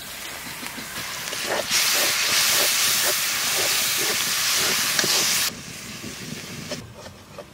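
Watery ground spice paste hitting hot oil and fried onions in an iron wok, sizzling with a loud hiss that builds over the first second or so. A metal spatula scrapes the pan a few times a second as it is stirred. The hiss cuts off suddenly about five and a half seconds in.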